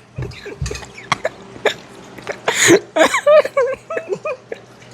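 Short non-speech vocal reactions from people: several sharp breathy bursts, then a few brief voiced sounds about three seconds in.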